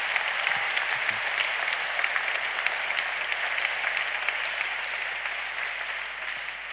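A large audience applauding, with a dense patter of many hands clapping that dies away near the end.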